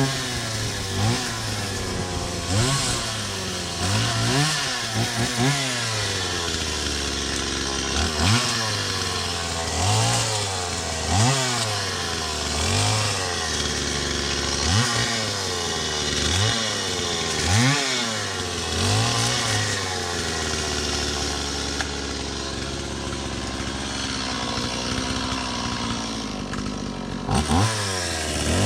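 Chainsaw engine revved up and let back down over and over, about once every one to two seconds. It settles into a steadier, lower run for several seconds, then revs sharply again near the end.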